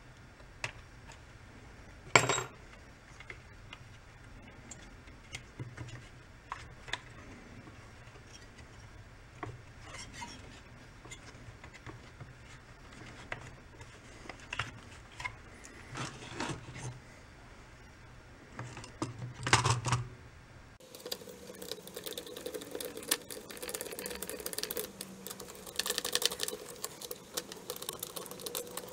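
Small clicks, taps and knocks of hand reassembly of a Husqvarna 350 chainsaw: plastic housing parts, screws and hand tools clinking against each other and the workbench. One sharp knock comes about two seconds in, and a cluster of louder knocks about two-thirds through.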